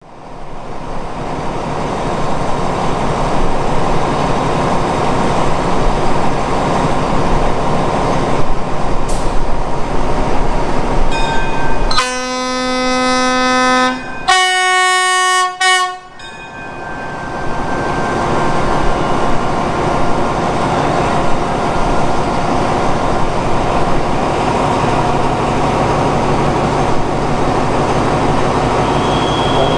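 Alsthom diesel-electric locomotive running loudly at a platform. About 12 seconds in it sounds two horn blasts, a lower note of about two seconds and then a shorter higher note, before its engine noise builds again as the train starts out of the station.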